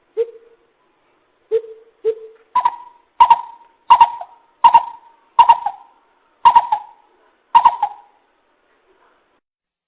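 Coucal (bìm bịp) hooting a lure call: a few low notes, then a run of higher, echoing hoots about every 0.7 s, each with a sharp onset.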